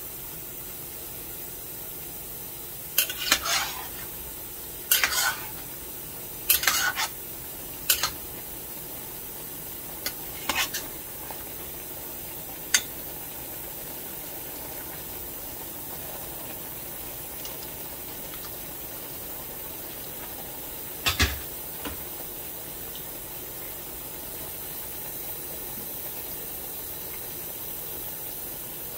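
A metal spoon clatters and scrapes against a metal cooking pot while stirring vegetables, in a run of sharp knocks in the first half and one more about two-thirds of the way in, over a steady hiss of the food cooking.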